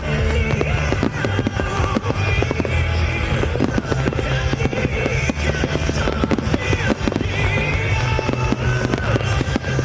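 Fireworks bursting and crackling in quick succession over loud music with a steady deep bass.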